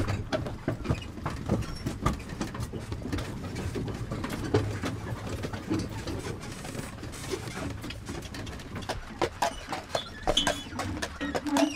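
Hooves of a Postier Breton draught horse clopping on the road while the horse-drawn wagon rattles and rumbles along, with sharp irregular knocks throughout. Birds call in the background.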